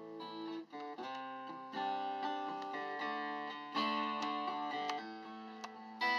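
Steel-string acoustic guitar being played: plucked notes and chords that ring on, with a new chord struck every second or two.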